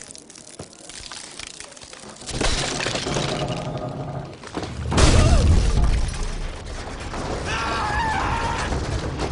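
Sound effects in an animation: a loud crashing rush begins about two seconds in, with a heavy boom about five seconds in.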